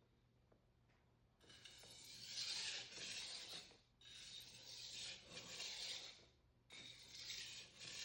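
Steel blade of a Global carving knife rubbing on a 400 grit Naniwa waterstone in three spells of gritty scraping strokes, starting about a second and a half in: light strokes to reduce the burr on the edge.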